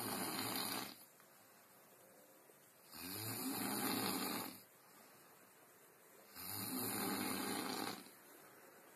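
Bear snoring in slow, even breaths: one ending just under a second in, then two more, each about a second and a half long and about three and a half seconds apart.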